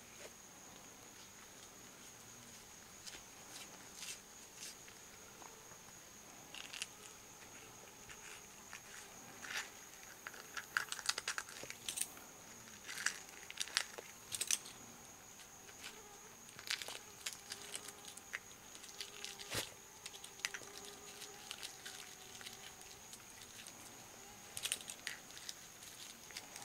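An ocelot biting and crunching an eggshell, small pieces cracking in irregular clusters of sharp clicks, busiest around the middle.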